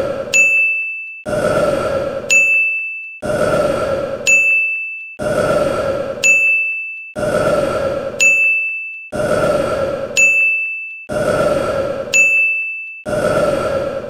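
A man's burp looped over and over, each one followed by a sharp ding sound effect, repeating about every two seconds, some seven times in a row.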